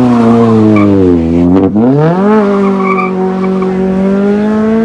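Car engine under heavy throttle with its tyres skidding. The revs sag for about a second and a half and drop sharply for a moment, then climb back and are held steady and high.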